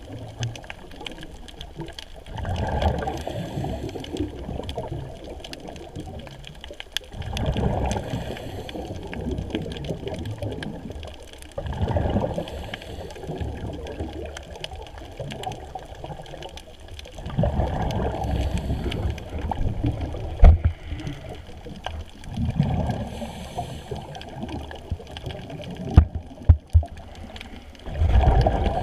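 Underwater gurgling and bubbling water noise, swelling in surges about every five seconds, with a few sharp knocks in the second half.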